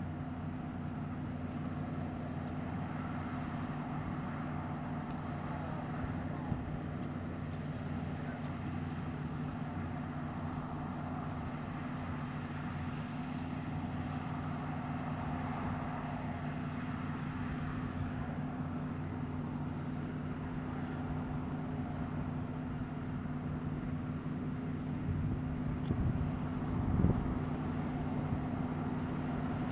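Claas combine harvester running under load while harvesting rapeseed: a steady low engine and machine drone that grows slightly louder as the combine approaches. A short thump near the end.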